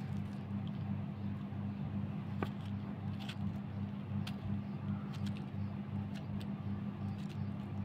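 A steady low hum, with a few scattered sharp clicks as a kitchen knife cuts through a carrot held in the hand.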